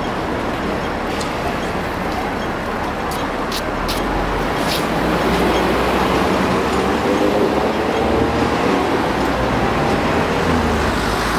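Hong Kong double-decker electric tram rolling along street rails and drawing into a stop, its wheel rumble and a faint motor whine over steady street traffic, growing slowly louder as it comes close. There are a few sharp clicks a few seconds in.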